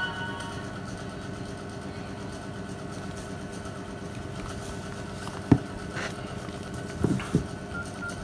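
Steady background hum like an idling engine, with a few short knocks of hard plastic phones being handled: one sharp tap about five and a half seconds in and two more around seven seconds. At the very start the tail of a phone's startup chime dies away.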